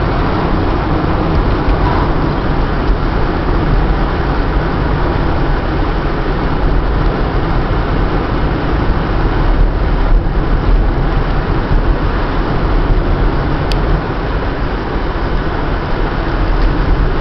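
Steady road noise heard inside a moving car: low tyre and engine rumble with no change of pace. A single faint tick sounds once near the end.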